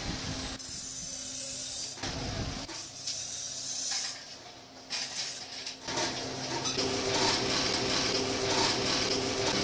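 Metal-workshop background noise: a steady hiss with a low hum, changing abruptly a few times. A second, higher hum joins in near the end.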